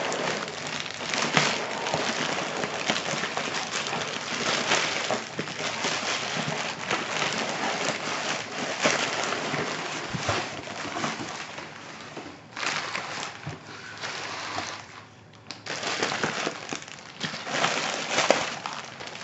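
Continuous rustling and crinkling of packaging being unwrapped and handled by hand, with many small crackles; it eases briefly about three-quarters of the way through.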